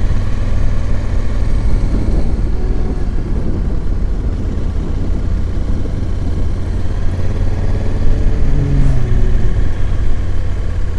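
Motorcycle engine running under way, with a steady rush of wind noise; the engine note rises and falls a little around two seconds in and again about eight and a half seconds in.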